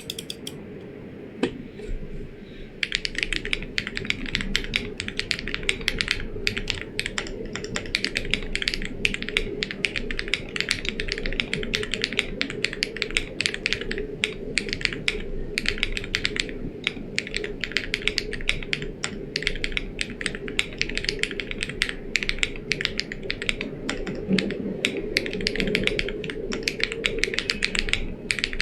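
Fast, continuous typing on a gasket-mounted Dolphin 80 TKL mechanical keyboard with Geon Black switches and DMK Astronaut keycaps. The typing starts about three seconds in, with brief pauses.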